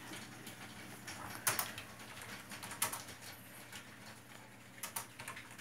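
Scattered light taps and clicks from handling, with the two loudest about one and a half and nearly three seconds in.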